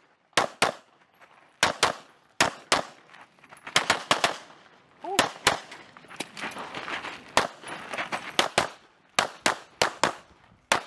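CZ Shadow 2 pistol fired in quick pairs of shots, about twenty shots in all, with short gaps between the strings.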